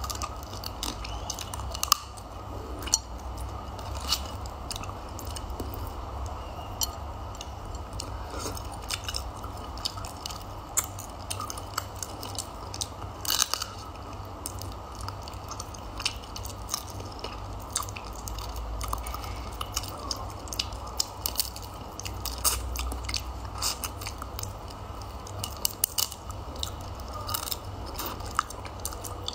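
Close-up eating sounds of cooked crab: crunching and chewing, with many sharp irregular cracks as the shell and legs are bitten and broken apart, over a steady low hum.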